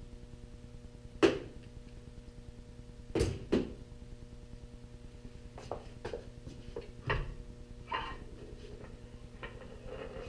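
Scattered clunks and knocks as an outboard's lower unit (gearcase) is worked free and lowered off the drive shaft. A sharp clack about a second in is the loudest, a pair of knocks follows around three seconds, and lighter knocks come later, over a low steady hum.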